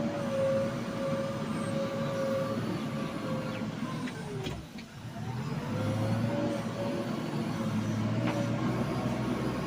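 JCB 3DX backhoe loader's diesel engine and hydraulics running steadily with a high whine. About halfway through the pitch sinks and the sound dips, then climbs back up as the engine revs again.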